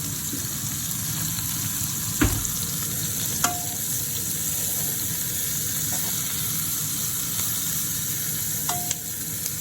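Diced chicken, peppers and onions sizzling steadily in a frying pan as they sauté, with a few sharp knocks of a utensil against the pan, the loudest about two seconds in.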